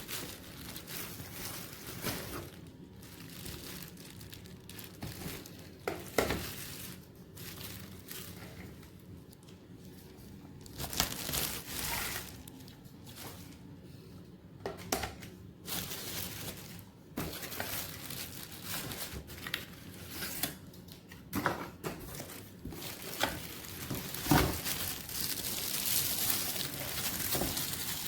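Eureka lightweight corded stick vacuum running over an area rug, with irregular clicks and rustling as grit and debris are picked up, rising and falling as it is pushed back and forth.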